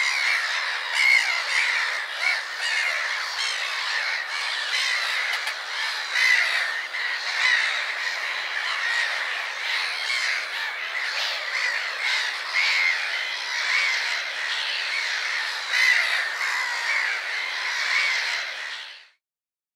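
A flock of seagulls squawking, many overlapping calls with no pause, cutting off sharply near the end.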